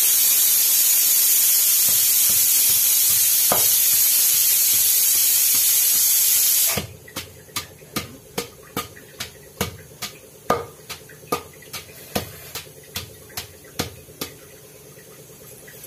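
A loud steady hiss that cuts off suddenly about seven seconds in. Then a long pestle pounds cucumber chutney in a stone mortar, about two and a half knocks a second, stopping about two seconds before the end.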